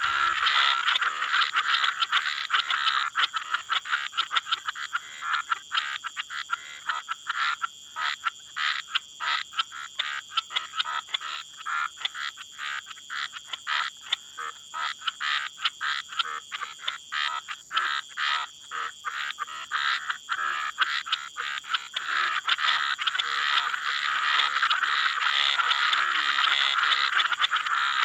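Frog and toad chorus at night: a dense wall of rapid pulsed calls that thins to separate trilling pulses midway, then swells back into a full chorus near the end.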